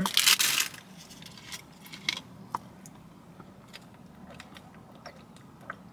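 A foil snack wrapper (a Pop-Tarts packet) crinkles sharply as it is handled for about half a second at the start. After that come scattered small clicks and taps of handling a plastic soda bottle, over a faint steady hum.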